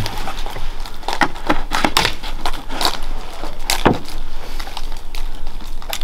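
Irregular clicks and knocks of handling: a plastic bottle and chainsaw parts being worked by hand, with a sharper knock just before four seconds in.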